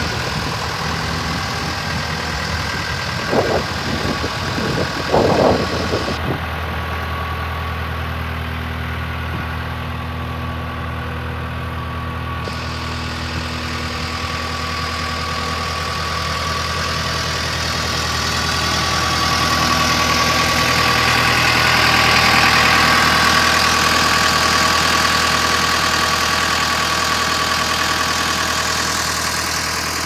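Case 1840 skid steer's four-cylinder diesel engine idling steadily, with two brief clunks a few seconds in; the engine grows louder about two-thirds of the way through, then eases off.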